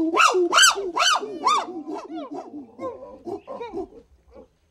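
Monkey calling: a quick run of short rising-and-falling cries, about two or three a second, loudest in the first two seconds, then weaker and dying away about four seconds in.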